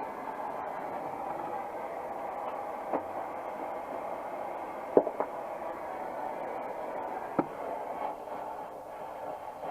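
Oxy-acetylene torch flame hissing steadily while heating a seized exhaust manifold bolt, with four sharp metal knocks: one about three seconds in, two close together about five seconds in, and one more about seven seconds in.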